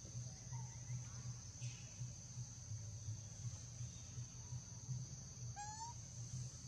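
Insects shrilling in one steady high drone over a low hum. There is a brief rising call about five and a half seconds in, with a few faint chirps earlier.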